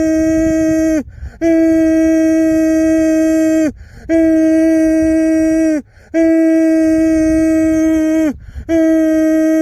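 A person's voice imitating a tornado warning siren: a run of loud, steady held notes of about two seconds each, every one sliding down in pitch as it trails off, with short gaps between them.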